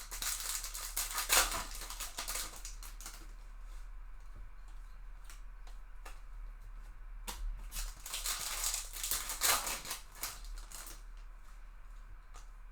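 A trading-card pack being opened by hand: the wrapper crinkling and tearing, with cards sliding and rustling. It comes in two spells, one at the start and another from about seven to ten seconds in.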